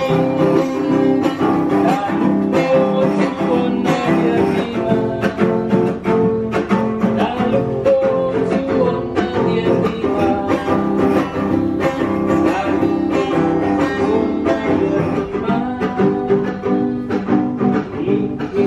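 Background production music with plucked string notes over sustained tones.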